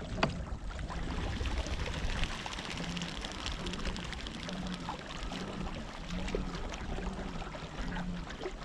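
Water lapping and splashing against the hull of a pedal kayak under way, with a low hum from the pedal drive pulsing a little more than once a second.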